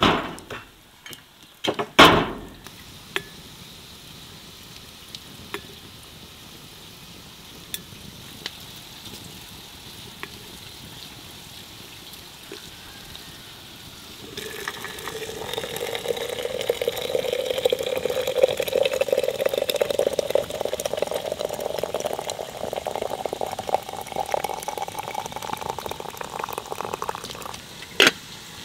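A few hard knocks as bricks are set down on the lid of a metal barrel smoker, the loudest about two seconds in. From about halfway, water pouring steadily into a vessel, its pitch rising slowly as it fills, followed near the end by a single sharp click as a kettle lid is handled.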